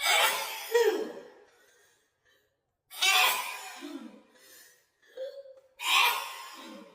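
A woman sneezing three times, about three seconds apart. Each sneeze is a sudden loud burst with a voiced tail, and a short voiced intake of breath comes just before the third.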